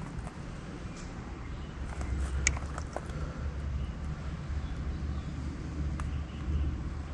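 Low steady hum of a 750 W rear hub motor spinning the raised rear wheel under throttle, strengthening about two seconds in. A few small plastic clicks come from a two-pin brake-lever connector being handled.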